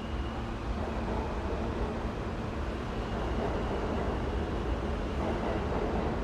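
Subway station ambience: a steady low rumble of rail traffic with faint steady high tones over it, growing slightly louder about halfway through.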